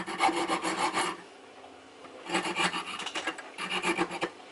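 Hacksaw cutting into a metal skateboard truck clamped in a vise, with rapid rasping back-and-forth strokes. The sawing stops about a second in and starts again after a pause of just over a second.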